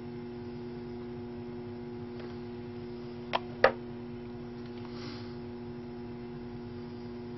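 Steady mains-frequency electrical hum from a variac-fed circuit energised at about 110 V, its induction motor powered but not turning. Two sharp clicks come a fraction of a second apart about three and a half seconds in.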